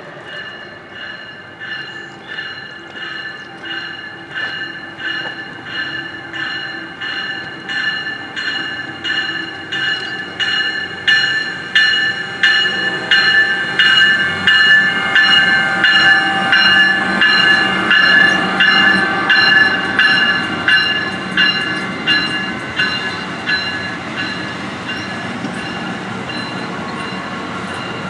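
Amtrak ACS-64 electric locomotive passing with its bell ringing about twice a second, the ringing growing louder as the engine comes by and then fading. The rumble of the passenger cars rolling past takes over near the end.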